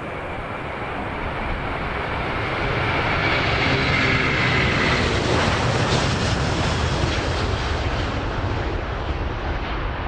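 Airbus A330-323 twin-jet's Pratt & Whitney PW4000 turbofans at takeoff power during the takeoff roll and liftoff. The noise grows louder as the jet passes, with an engine whine that falls in pitch near the middle, then eases slightly as it climbs away.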